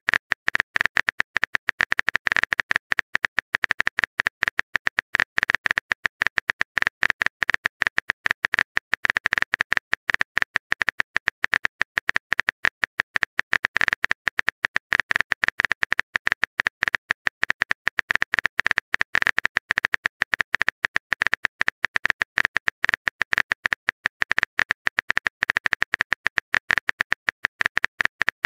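Rapid keyboard-typing clicks, a texting sound effect, several clicks a second without a break.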